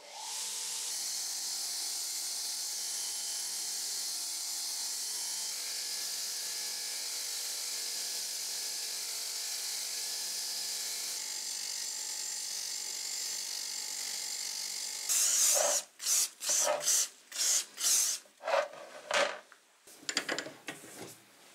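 Bench grinder with a wire brush wheel starting up and running steadily, its wire bristles scrubbing rust off old steel pincers. About fifteen seconds in it stops, and about a dozen short, irregular scraping strokes on metal follow by hand.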